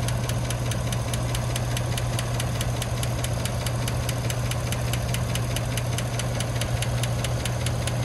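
GM 5.3L AFM V8 idling with a rapid, even valve-train tick, about five a second, keeping time with the engine. The tick is typical of a valve-train fault that the mechanic traces to the cylinder one rocker arm on the driver's side, suspecting a loose rocker bolt, failed rocker needle bearings or a flat cam lobe.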